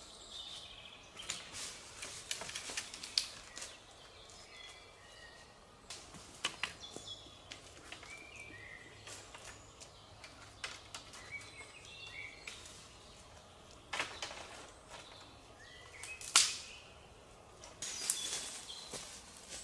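Wooden poles and branches knocking and rustling while they are set against a tipi frame, with footsteps on dry leaf litter and twigs snapping; a sharp crack about two-thirds of the way through is the loudest sound. Small birds sing short phrases at intervals.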